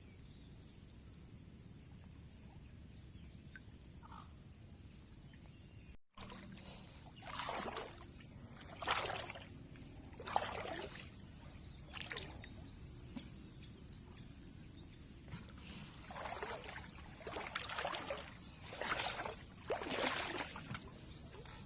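Water splashing and sloshing in short irregular bursts, about a dozen of them after the first few seconds, with a faint steady high-pitched whine underneath.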